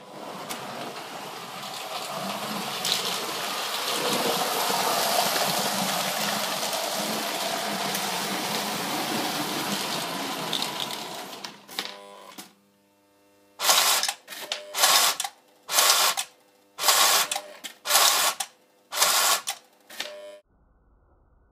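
Lionel O gauge toy trains and accessories at work: about twelve seconds of steady mechanical clatter, then seven short buzzing bursts roughly a second apart, each with a steady hum under it.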